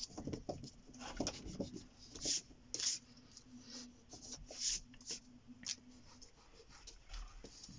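Rubber eraser scrubbing on drawing paper in short, irregular strokes, with a few brisker rubs, erasing unneeded pencil guide lines.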